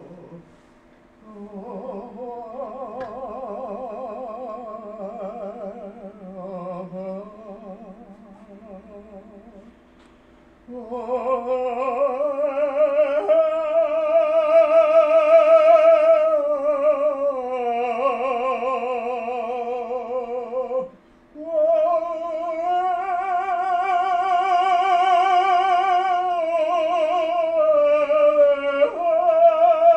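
Male singer holding long notes with a wide, fast vibrato in a contemporary opera style. The voice jumps higher and louder about eleven seconds in, with brief breaks for breath near ten and twenty-one seconds, over a faint steady held tone.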